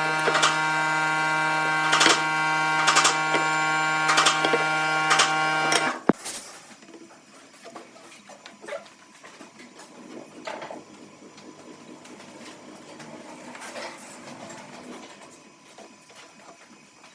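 An electric motor running steadily with a hum and a few sharp clicks, cutting off suddenly about six seconds in; after that, only faint scattered knocks and scraping.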